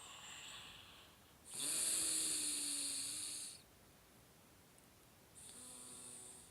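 Snoring, three breaths in a row: a short one at the start, a long, louder one with a low droning tone from about one and a half to three and a half seconds in, and a shorter droning one near the end.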